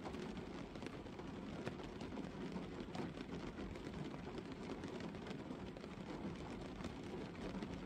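Gentle rain falling on a car's windscreen, heard from inside the cabin: a steady hiss dotted with many small drop ticks.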